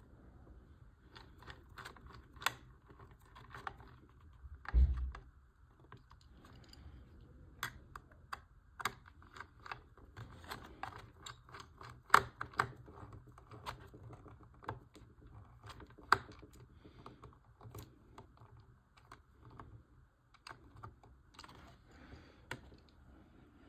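Small model-kit parts being handled and fitted together on a tabletop: irregular sharp clicks and taps, with one dull thump about five seconds in.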